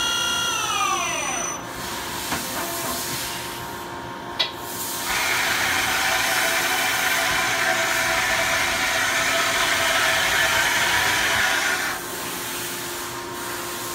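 Daewoo Puma 1500SY CNC turn-mill center running a program. A motor whine falls in pitch and dies away in the first second and a half, there is a sharp click about four seconds in, then a steady hiss from the machine runs for about seven seconds and drops off about twelve seconds in.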